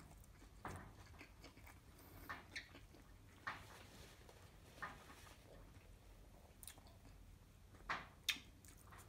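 Faint close-up mouth sounds of a person eating a burger: quiet chewing with scattered soft smacks, and a couple of sharper bites near the end.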